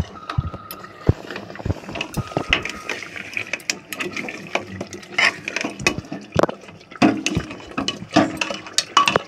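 A metal spoon stirring meat korma gravy in an aluminium pressure cooker: repeated scraping and clinking of metal on the pot, with the wet sloshing of the gravy.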